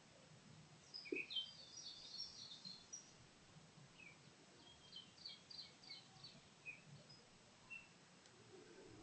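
Faint birds chirping in short high notes, a busy cluster about a second in and another around five seconds, over quiet outdoor background noise.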